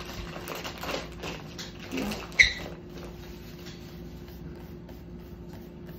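Soft rustling and crackling of fingers breaking up cannabis buds over a plastic rolling tray, with one sharp click about two and a half seconds in. A faint steady hum runs underneath.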